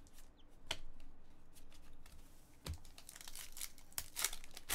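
Trading cards being handled and a foil card-pack wrapper crinkling and tearing open: a string of short, sharp rustles and clicks, busier in the second half.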